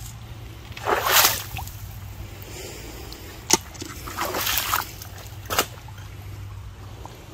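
Footsteps wading through shallow creek water: a few separate splashes and sloshes, the loudest about a second in and another just past four seconds, with two sharp knocks between them, over a steady low rumble.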